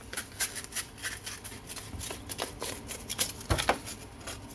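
A sheet of 220-grit sandpaper being folded and creased by hand, giving an irregular run of crisp paper crinkles and snaps. Two duller knocks come about three and a half seconds in.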